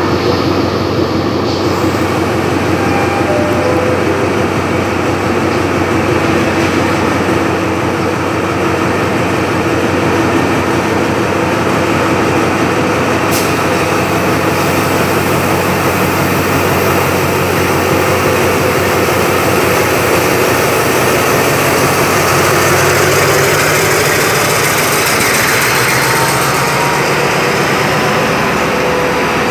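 Alsthom diesel-electric locomotive running loud and steady as it pulls the train out and passes close by, with a single sharp click about halfway through.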